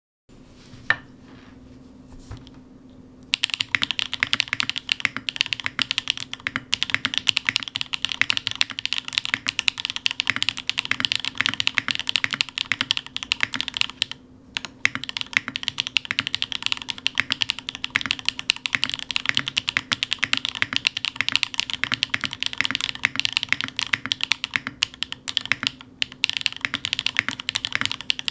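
Rapid continuous typing on a TKD PT75 mechanical keyboard with Sillyworks x Gateron Type R tactile switches (factory-lubed, POM stems, PA66 housings), an aluminium plate and Keykobo keycaps. A single key click comes about a second in, then steady fast typing starts about three seconds in, with a brief break near the middle.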